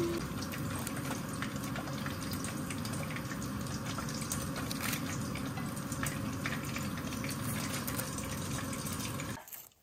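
Hot oil sizzling in a frying pan as battered pieces shallow-fry, a steady hiss with many small pops and crackles; it cuts off suddenly near the end.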